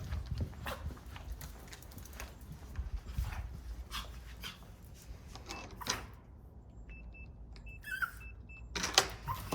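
A small dog's claws tapping and clicking on a hard floor. About two-thirds of the way in, a digital door lock's keypad beeps several times as the code is entered, followed by knocks near the end.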